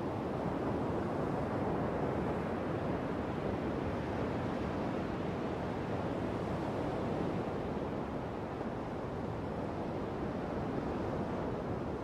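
Heavy ocean surf: big Atlantic waves breaking in a steady, even wash of noise.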